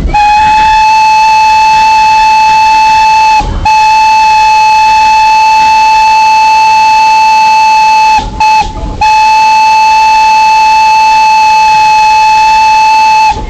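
Steam locomotive whistle sounding one steady note, blown long, long, short, long: the signal a train gives when approaching a road crossing. It is loud throughout.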